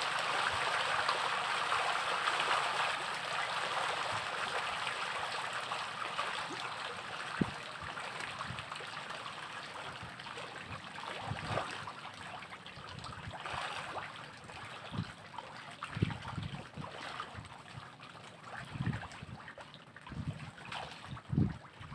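Farmed fish splashing and churning at the surface of a floating net cage as feed hits the water, a dense hissing splash that is loudest at first and dies down slowly over many seconds. Scattered low thumps come later on.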